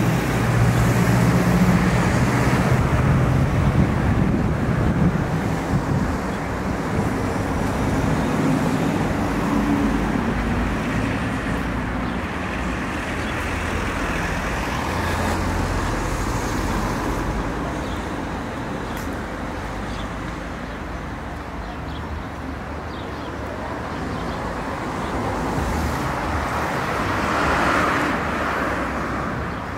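Road traffic on a street: a steady wash of car engine and tyre noise. One vehicle's engine hum is loudest in the first few seconds, and another passing vehicle swells near the end.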